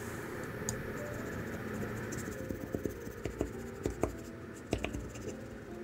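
A thin blade scraping along the inside edge of a metal sheet pan, loosening a baked sponge cake from the tin: a steady scratching with many small ticks and knocks, busiest in the second half.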